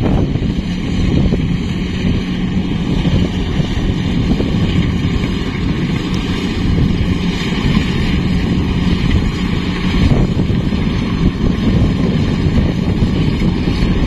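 Kubota DC-70 Plus combine harvester running steadily as it cuts and threshes rice, a steady low drone, heard from a distance under heavy wind buffeting on the microphone.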